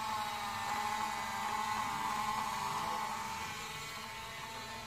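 Battery-powered toy dart blaster's flywheel motor whirring: a steady electric hum that fades toward the end.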